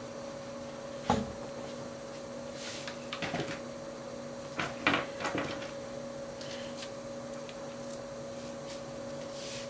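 A few light knocks and clicks of objects being handled, over a steady low hum.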